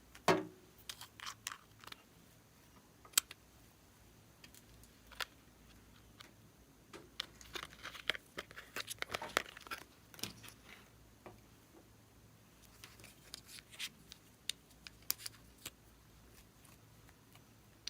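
Plastic crinkling with scattered small clicks and taps from hands handling piping bags. There is a thump just after the start, and the rustling is busiest about seven to ten seconds in.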